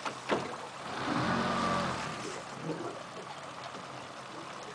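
A boat motor running, swelling louder for about a second starting a second in, over the steady wash of river water. A sharp knock comes just before.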